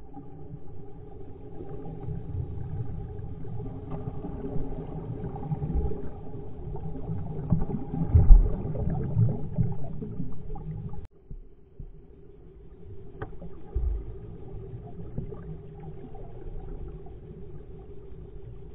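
Underwater pool sound heard through an SJ4000 action camera's waterproof housing, slowed down four times: a deep, muffled rumble and gurgle of churning water and bubbles as a child dives and swims past the lens. It is loudest a little before the middle, breaks off abruptly about eleven seconds in, then carries on quieter.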